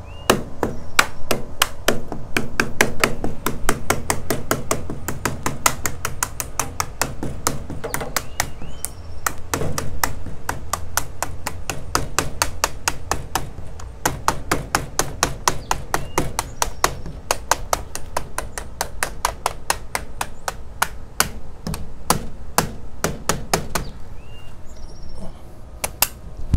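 Mallet tapping a vinyl Screen Tight cap onto its track: a long series of quick, close-together taps, about four a second with a few brief pauses, snapping the cap down into the base.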